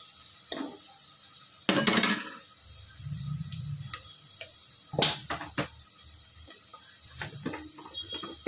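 Sliced onions sizzling in hot oil in an aluminium pressure cooker, nearly done frying: a steady hiss. A few sharp clinks and knocks of utensils on metal break in, the loudest about two seconds in and about five seconds in.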